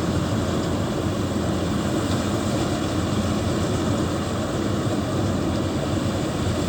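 Heavy farm diesel engines, from the tractor and the stuck combine harvester, running steadily at a constant level.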